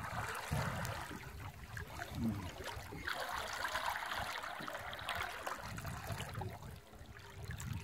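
A large hooked jaú catfish thrashing at the water's surface beside the boat, with irregular splashing and sloshing water, strongest in the middle.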